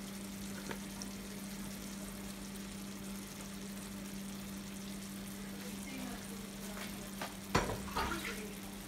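Tomato-onion fish curry sizzling steadily in a frying pan on a gas stove as whole baila fish are laid into the sauce, over a steady low hum. A couple of short knocks sound near the end.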